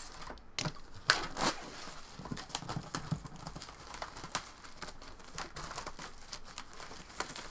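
Clear plastic shrink wrap being slit and pulled off a cardboard trading-card box, crinkling and crackling in many irregular small snaps, the sharpest about a second in.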